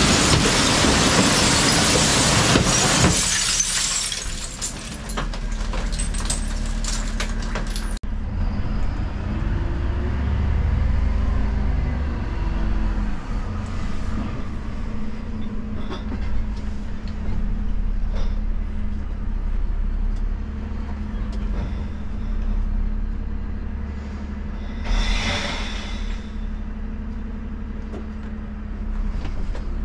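Glass bottles crashing into the rear hopper of a Dennis Elite refuse truck as a bin is tipped, tailing off into scattered clinks of glass. About eight seconds in the sound changes abruptly to the truck's engine running, heard from inside the cab, with a short hiss of air about 25 seconds in.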